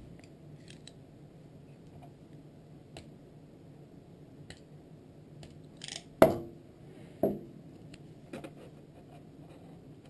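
Electrical tape being handled and pulled off its roll to wrap a wiring-harness splice: scattered small clicks and crackles, with a sharp clack about six seconds in and a weaker one about a second later.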